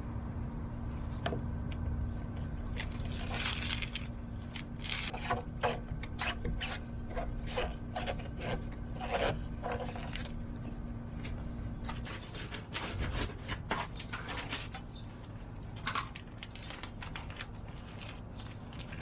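Scattered clicks, scrapes and knocks of hands-on building work, over a steady low hum that stops about twelve seconds in.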